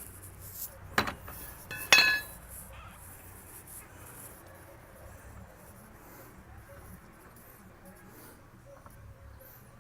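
Two sharp metallic clinks about a second apart, the second ringing briefly, as the last lug nut comes off the truck's rear wheel; then only faint handling noise.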